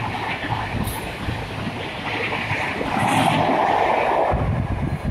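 Rajdhani Express coaches passing along the platform, their wheels running on the rails in a continuous rumble. It grows louder about three seconds in as the rear power van goes by.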